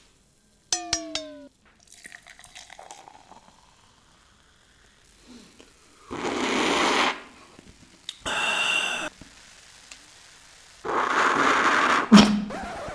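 A bottle of Thums Up cola being opened with a few sharp clicks about a second in, then loud noisy sips of the fizzy cola from a glass mug, twice: once around the middle and again near the end.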